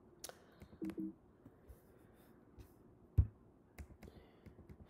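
Quiet room tone with a short hummed voice sound about a second in and one sharp click a little past three seconds, plus a few faint ticks.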